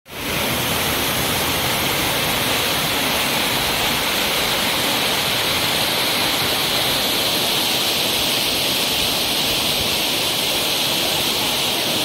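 Waterfall cascading down rock: a steady, unbroken rushing of white water.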